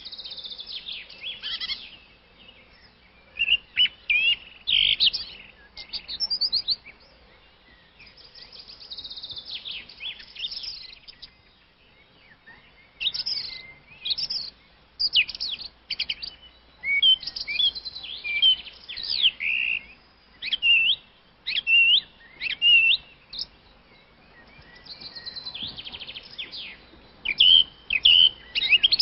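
Small birds chirping and trilling in quick bursts of short, high notes, with brief lulls between the bursts.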